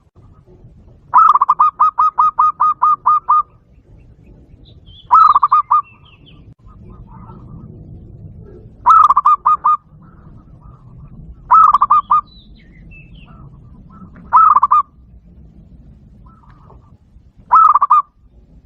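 Zebra dove giving its rapid staccato cooing call: a long run of about ten quick notes, then five shorter bursts of notes a few seconds apart. Fainter bird chirps come in between the bursts.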